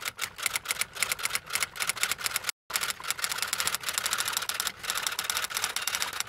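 Typewriter keys clacking in a fast, even run of about six or seven strokes a second, a sound effect for on-screen text being typed out. There is a short pause about two and a half seconds in.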